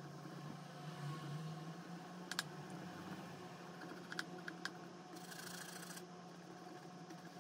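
Quiet room with a steady low hum, broken by a few light clicks and taps, one about two and a half seconds in and three between four and five seconds in, and a short scratchy swish a little after five seconds in, from a paintbrush being handled and stroked on an oil painting panel.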